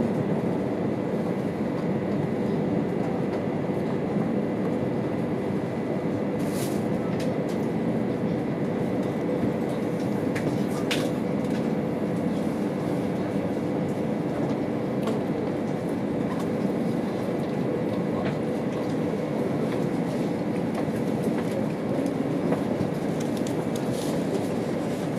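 Steady running noise of an E2 series Shinkansen train heard inside the passenger cabin: an even rumble with a constant low hum, and a couple of faint clicks partway through.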